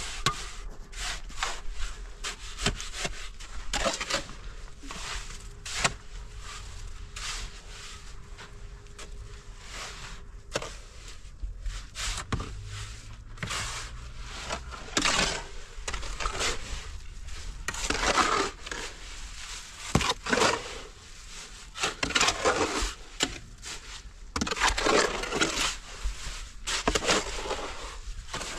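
Shovels scraping through wet cement mortar and scooping it into a metal wheelbarrow: repeated, irregular rasping strokes with occasional knocks.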